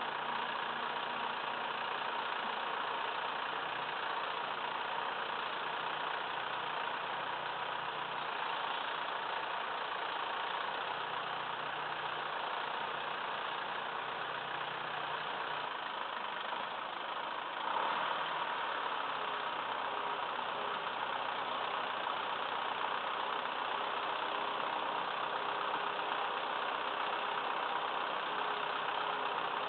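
Diesel engine of a Massey Ferguson 2635 tractor running steadily, with a brief rise in loudness about eighteen seconds in.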